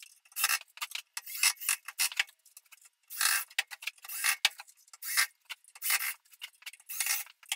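Cordless drill driving screws into a plastic sprinkler valve lid, run in a dozen or so short, irregular bursts of the trigger.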